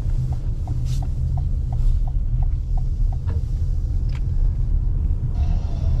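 Steady low road and tyre rumble heard from inside a 2021 Toyota RAV4 Hybrid on the move, with a turn signal ticking about three times a second for the first few seconds as the car passes a junction.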